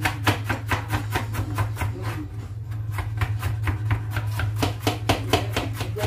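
Kitchen knife chopping bitter melon on a plastic cutting board, in rapid, even strokes of about five a second, with a short pause a little over two seconds in.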